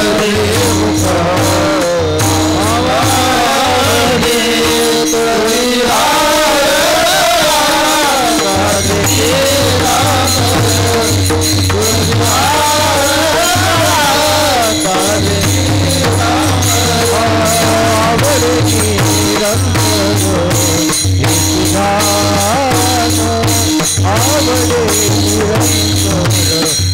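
Warkari bhajan: men singing a devotional chal melody, with hand cymbals (taal) jingling and striking in a steady rhythm. A steady low drone sits underneath, dropping out briefly about five seconds in.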